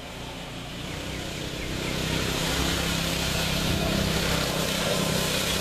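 A motor engine running, growing louder over the first two seconds and then holding steady.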